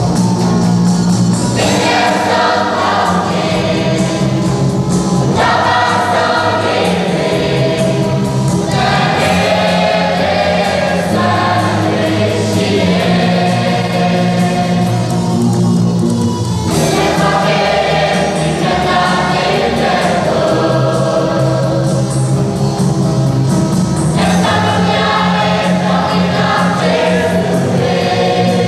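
Choir singing a Christian hymn in long held phrases, with brief breaks between phrases.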